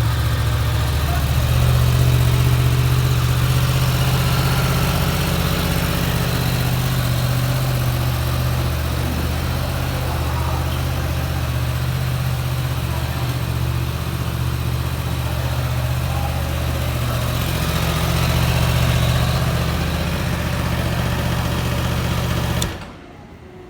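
Yamaha R1 sport bike's inline-four engine idling steadily, picking up slightly twice. The engine sound stops abruptly about a second before the end.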